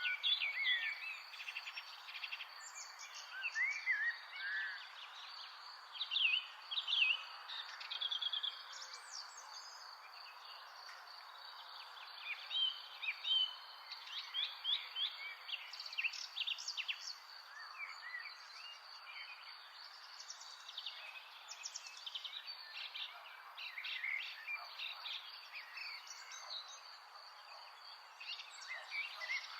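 Several songbirds chirping and singing in short, overlapping phrases over a steady background hiss, with a thin, high, steady tone underneath.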